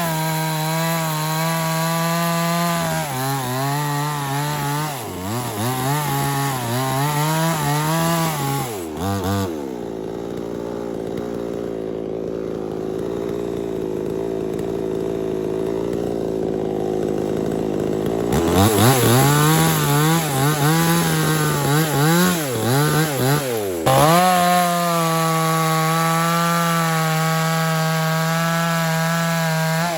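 Mini two-stroke chainsaw running at high revs, the pitch sagging and recovering repeatedly as it loads up in the cut. About a third of the way in it drops to idle for several seconds, then revs up, bogs a few more times and holds steady at full throttle near the end.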